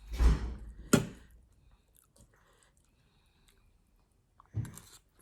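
A person eating, biting and chewing crunchy food, likely the chicken-feet salad: a few loud crunches near the start and about a second in, then quiet chewing, and another crunch near the end.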